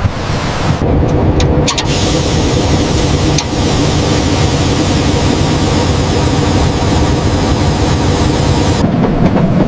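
A heavy engine running steadily with a low rumble, with a few sharp clicks between about one and two seconds in.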